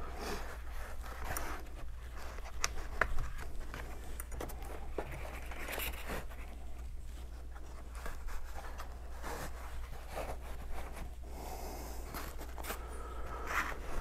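Insulating boot being worked loose and pulled off a truck battery by hand: soft rustling and scraping with scattered light clicks and knocks, over a steady low hum.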